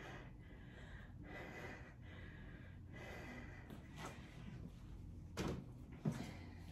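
A person breathing hard in short puffs during a dumbbell exercise, then two sharp clunks about half a second apart near the end as the dumbbells are set down.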